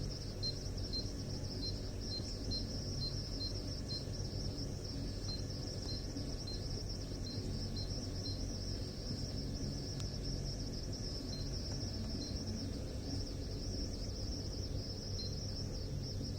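Insects chirping: a steady high trill with short pips about twice a second that thin out to a few scattered ones about halfway through, over a steady low hum.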